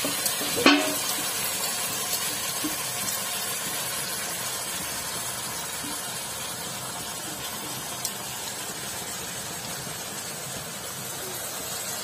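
Marinated chicken sizzling in a hot, oiled kadhai: a steady hiss that slowly eases, with one sharp metal clank against the pan about a second in.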